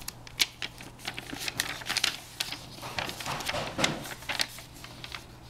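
Paper pages of a thin picture book being handled: a scatter of light clicks and rustles, with a page turned about four seconds in.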